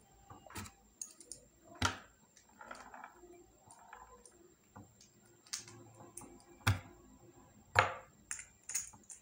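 Scattered sharp clicks and light knocks from handling a metal yoyo and its string, a handful of separate taps, the loudest about two seconds in and twice near the end.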